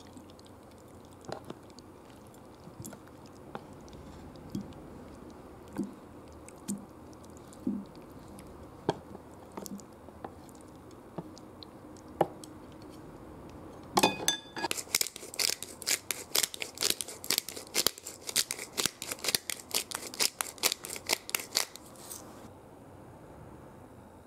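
Soft wet sliding and light taps as food is pushed out of a plastic container onto a plate with chopsticks. Just past halfway, a pepper mill grinding black pepper over the dish in a quick, even run of sharp clicks, about four a second, for some eight seconds before it stops.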